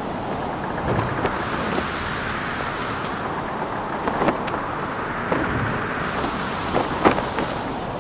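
Steady rushing wind with a flag's cloth cracking and snapping a few times.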